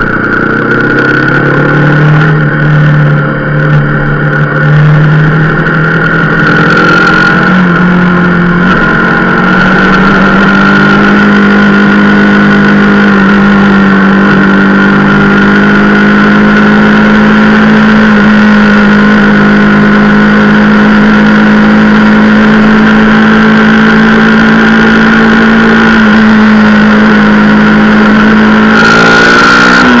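Motorcycle engine pulling away and accelerating, its pitch climbing and stepping up over the first several seconds, then holding a steady cruising note from about ten seconds in, with a brief change in pitch near the end. A steady high whine runs over the engine sound.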